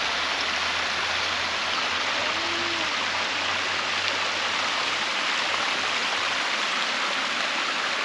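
Small waterfall pouring over a sandstone ledge: a steady rush of falling water.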